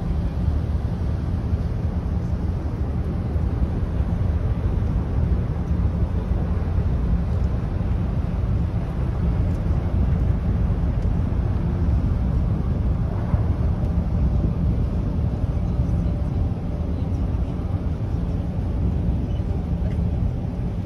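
Steady low rumble and rushing noise of a ship under way, with wind.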